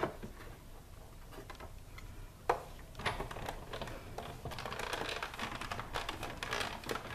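Plastic cutting plates clack twice as they are set on the platform of a Big Shot die-cutting machine. From about three seconds in, the handle is cranked and the plate sandwich feeds through the rollers with rapid irregular clicking and crackling as thin metal dies press through cardstock scraps.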